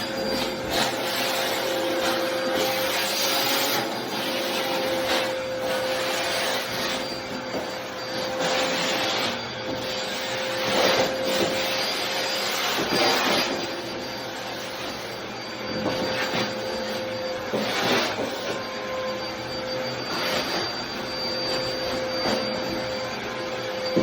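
Hoover Back Pack bagless backpack vacuum running steadily with a constant whine. The rush of air swells and falls back at irregular intervals of a few seconds.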